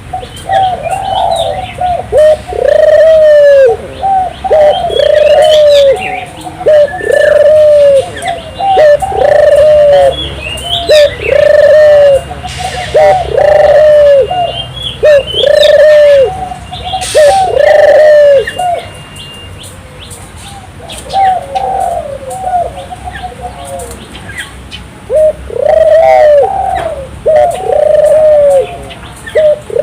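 Barbary dove cooing over and over, about one note a second in long runs with short breaks, while small birds chirp faintly behind it.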